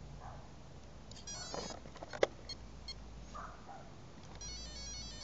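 Power-on tones of a Castle Mamba Max Pro ESC in a 1/10 electric buggy, sounded through its brushless motor. A short run of quick stepped beeps comes about a second in, a sharp click at about two seconds, and another run of stepped beeps near the end.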